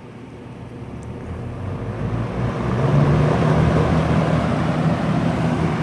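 1983 Robeson 20-inch box fan started on high speed, spinning up: the rush of moving air grows louder over about three seconds, then settles into a steady whoosh with a low hum.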